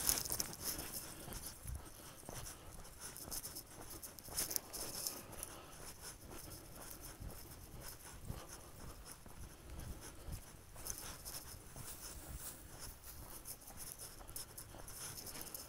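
Faint footsteps scuffing and crunching on a dry dirt trail strewn with leaves, with irregular rustling.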